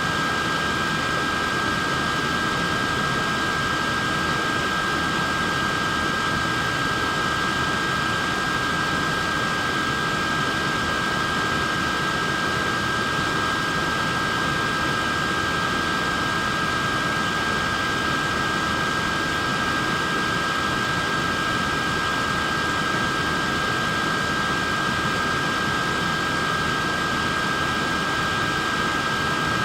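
Wearable neck fan running steadily: a constant rush of air with a high, even whine from its small motor and blades.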